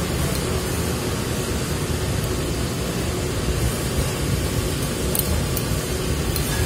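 Steady low rumble and hiss of background noise, with a few faint wet clicks near the end as flat rice noodles are slurped and chewed.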